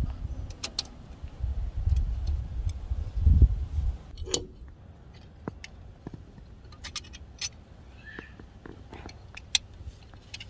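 Scattered metallic clicks and taps of drum-brake shoes, return springs and hardware being handled and fitted against the backing plate, over a low rumble during the first four seconds.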